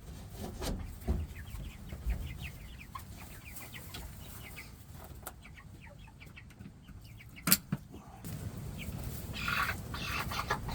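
A flock of young Cornish Cross meat chickens peeping and clucking in a constant stream of short, high calls. There is a single sharp knock about seven and a half seconds in.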